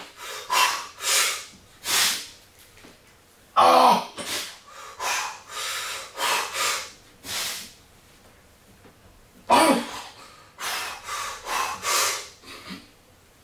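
A weightlifter breathing hard and forcefully under a loaded barbell during back squats. There are three runs of quick, sharp breaths with short pauses between them, and a loud voiced grunt about three and a half seconds in and again about nine and a half seconds in.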